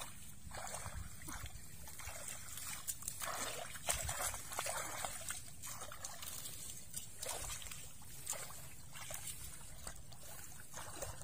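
Hands groping and scooping through shallow muddy water, making small splashes and trickles at irregular intervals.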